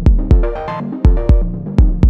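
Electronic background music with a steady, punchy kick-drum beat and short synth melody notes.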